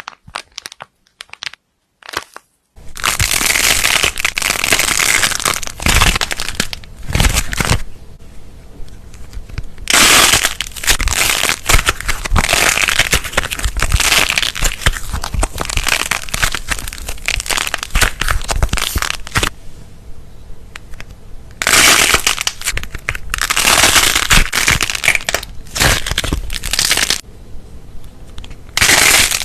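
Slime being squeezed, pressed and kneaded by hand, giving dense crackling and crunching in repeated bouts with short pauses between them. It starts with a few small clicks and settles into steady crackling about three seconds in.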